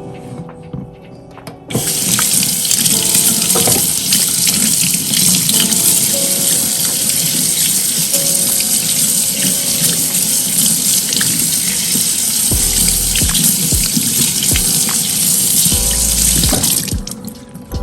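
Water running from a tap into a sink in a steady rush, turned on about two seconds in and shut off near the end, with soft background music underneath.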